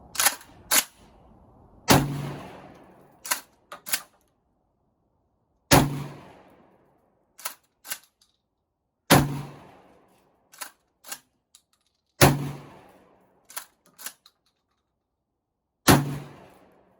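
Kel-Tec KSG 12-gauge pump-action shotgun firing buckshot: five loud shots about three and a half seconds apart, each followed by a fading echo. Between the shots, and twice at the start, the pump is racked back and forward with two sharp clacks.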